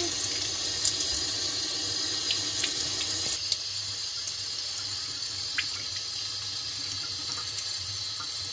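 Kitchen tap running steadily, its stream splashing over a cucumber being rubbed clean by hand and into the sink.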